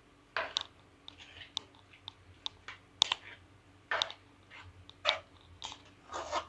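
A metal spoon stirring thick chicken curry in a metal pan: irregular scrapes and clicks of the spoon against the pan, about two a second.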